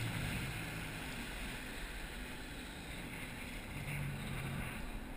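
Sea-Doo personal watercraft running at low speed, a steady muffled hum under the wash of water sloshing around the hull.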